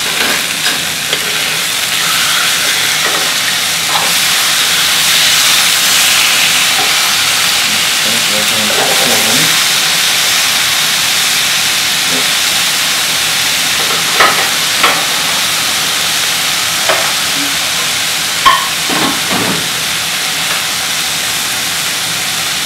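Thin beef steaks searing over high heat in a grill pan: a steady sizzle, with a few short sharp clicks in the second half.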